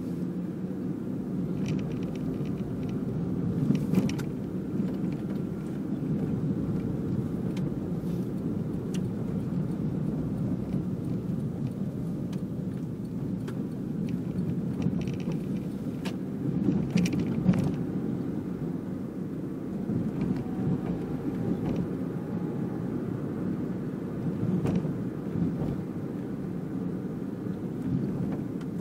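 Steady engine and road rumble inside a small car's cabin while it drives, with a few brief knocks about four seconds in, around the middle, and near the end.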